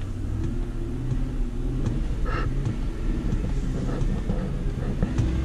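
2008 Ford F-150's engine revving in the cab with the transmission in reverse while the truck won't back up on flat ground. The automatic transmission is not taking up drive in reverse, a fault a friend suspects is a stretched or worn band.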